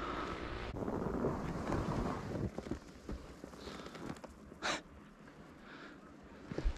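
Wind buffeting the camera microphone, with rustling handling noise, a brief hiss about two-thirds of the way through and a soft thump near the end.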